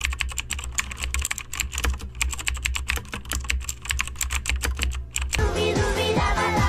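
Rapid typing on a computer keyboard, a fast, uneven run of key clicks. About five seconds in the typing stops and music comes in.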